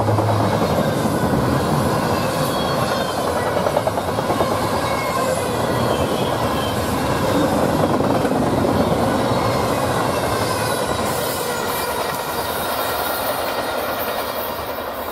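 Double-stack intermodal freight cars rolling past, steel wheels clattering on the rails, growing a little quieter near the end as the last cars move away.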